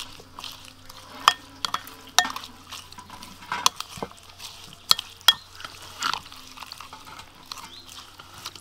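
Metal spoon stirring a wet mix of sliced shallots, garlic and chilies in a glass bowl, with irregular light clinks of spoon against glass about once a second.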